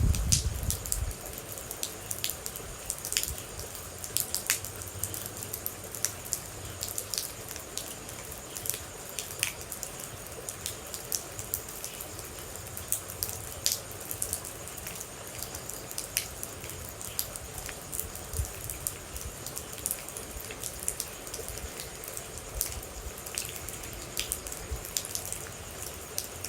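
Water drops dripping irregularly, sharp clicks a few times a second, over a steady hiss of rain. A low rumble sounds in the first second.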